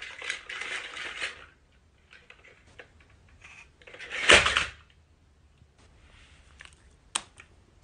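Walking toy dinosaur on a wooden floor: an opening stretch of hissing noise, then scattered light clicks, a loud short clatter about four seconds in as the toy topples over, and a sharp click near the end.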